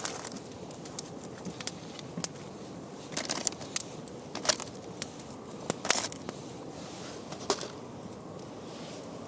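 Wood campfire crackling over a steady low hiss, with scattered sharp pops and a few louder crackles about three, four and a half, six and seven and a half seconds in.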